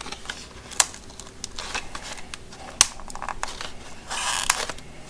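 Tool packaging being worked open by hand: crinkling and crackling with a few sharp snaps, and a short tearing rasp near the end.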